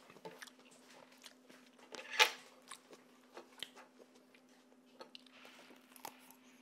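Quiet eating sounds: forks tapping and scraping on ceramic plates as pancakes are cut, with scattered small clicks and one louder clink about two seconds in, over a faint steady hum.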